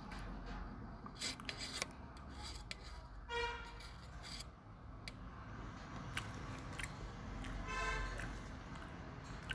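Steel spoon scraping and clinking on a stainless steel plate while scooping rice. There are a few sharp clicks, and two short high metal-on-metal squeals, about three seconds in and again about eight seconds in.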